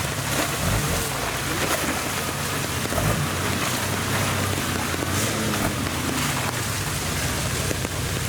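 An off-road 4x4's engine running at low revs, wavering a little, under a steady hiss of rain.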